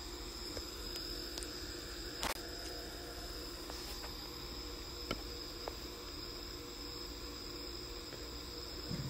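Night insects chirping steadily in a high, even trill, with a brief burst of noise a little over two seconds in and a couple of faint clicks around five seconds.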